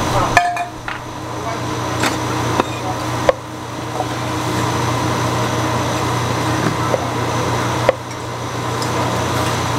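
Cleaver knocking on a wooden chopping block as cooked meat is sliced: a few sharp knocks at uneven intervals over a steady low hum.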